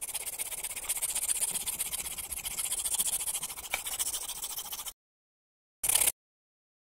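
A scratchy, high hissing noise for about five seconds that cuts off suddenly, followed about a second later by a short burst of the same noise.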